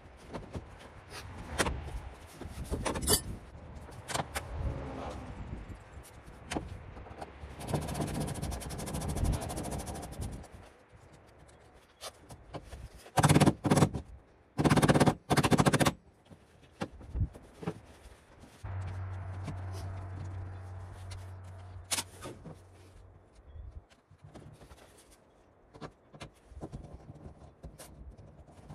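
Intermittent clanks, scrapes and rattles of hand tools and old outboard control cables against an aluminum boat hull as the controls are taken off. Several loud bangs come in a cluster about halfway through.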